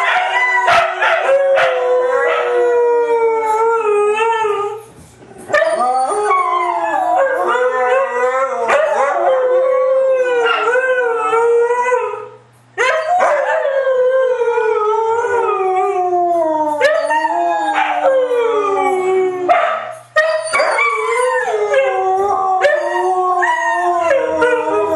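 Huskies howling together, several long, wavering howls overlapping, many sliding downward in pitch. They pause briefly about five and about twelve seconds in.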